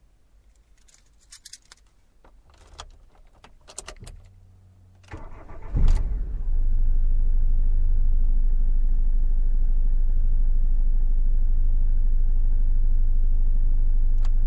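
Car engine started from inside the cabin: a few seconds of key jingles and clicks, then a brief crank, and the engine catches with a short rev at about six seconds in. It then settles into a steady idle.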